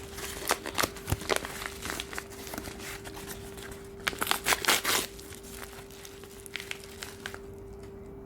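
Packaging crinkling and rustling, with scattered handling clicks, as items are unwrapped. It is busiest about four to five seconds in, then quieter.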